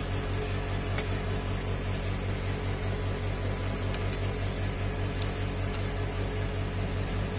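Steady machine hum with a low throb that pulses several times a second, and a few light clicks (about a second in, around four seconds and just past five) as flex-cable connectors are unclipped from a Vivo Y81 logic board.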